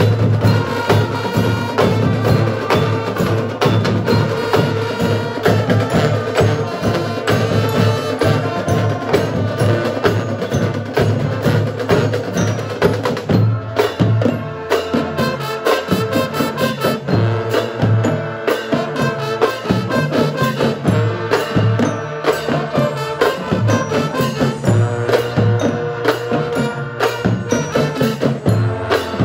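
Marching band playing live: a brass section of trumpets, mellophones and sousaphones carries the tune over a drumline of snare drums and bass drums beating a steady rhythm.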